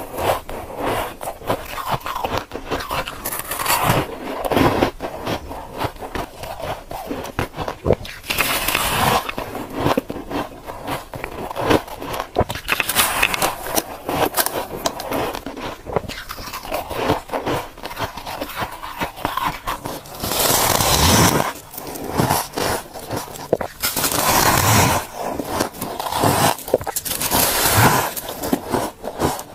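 Close-up biting and crunching of soft freezer frost, a dense crackle of small crunches with louder, fuller bites every few seconds.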